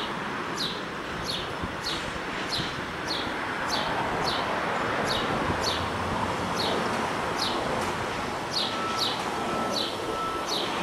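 A bird calling a short, high note that sweeps downward, repeated evenly about twice a second, over a steady outdoor hiss of wind in the leaves and distant traffic.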